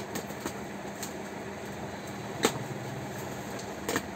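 Cardboard box being opened by hand: a few sharp snaps and creaks of the cardboard as its taped flaps are pulled apart, the loudest about two and a half seconds in. A steady background hum runs underneath.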